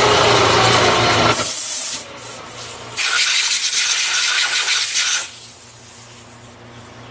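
Vertical milling machine spindle running, then stopping about a second and a half in. A compressed-air blow gun then blasts chips off a freshly milled cam gear, first in a short burst, then in a longer one of about two seconds.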